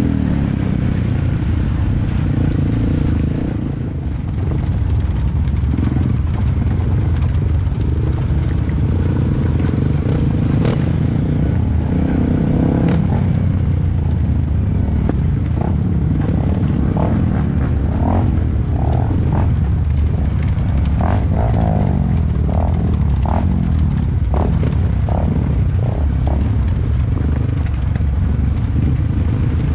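Yamaha WR155R dirt bike's single-cylinder four-stroke engine running steadily while riding a rough dirt trail, easing off briefly about four seconds in. A sharp click about ten seconds in, and short high tones come and go in the second half.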